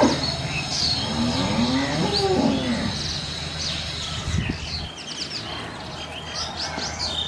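A bovine lowing once: a long moo about a second in that rises and falls in pitch. A steady low hum runs beneath it and stops about five seconds in, and birds chirp in the second half.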